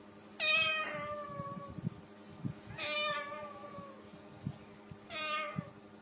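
White cockatoo mimicking a cat's meow: three drawn-out meows, about two and a half seconds apart, each falling in pitch.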